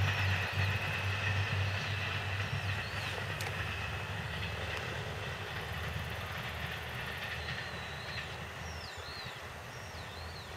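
JR KiHa E130-series four-car diesel multiple unit running past and away, its diesel engines' low drone and the rail noise fading steadily as it goes.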